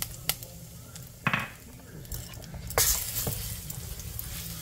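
Ground geera (cumin) and masala frying in hot oil in a frying pan, stirred with a wooden spoon, with a few light knocks of the spoon on the pan. About three seconds in the sizzle jumps up and stays louder as the spices are stirred through the oil. This is the spices being tempered in oil at the start of a curry.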